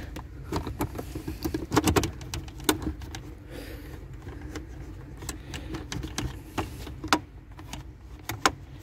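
Irregular sharp clicks and knocks of plastic interior trim being worked loose: the rear panel of a BMW E91's centre console being pulled off its clips by hand.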